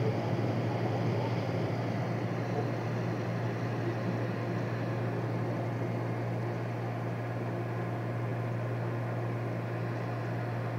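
A ferry's engines running with a steady low drone and hum, heard from on board while the boat is backed into its dock.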